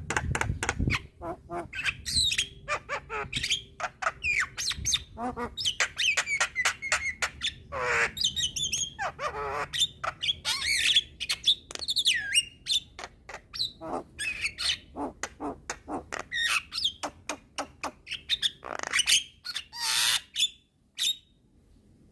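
Javan myna (jalak kebo) in full, lively song: a fast, varied run of rapid clicks, harsh squawking chatter and short whistles, breaking off about a second before the end.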